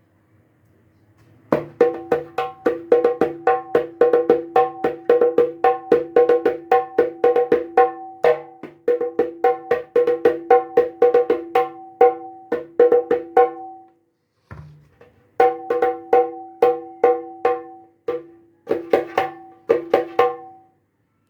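Sundanese jaipong kendang played by hand in a sound test of its first tuning with white lacing cords: quick rhythmic strokes mixing ringing pitched tones with low bass strokes, with two short breaks in the playing.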